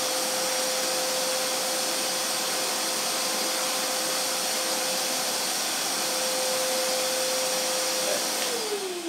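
Kärcher WD3 wet-and-dry vacuum running as a blower: a steady rush of air with a steady motor whine. Near the end it is switched off and the whine falls in pitch as the motor spins down.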